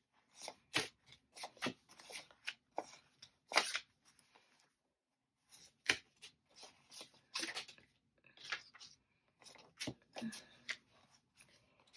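Paper banknotes and cash envelopes being handled: irregular short rustles and sharp crinkles, several a second, with a brief pause near the middle.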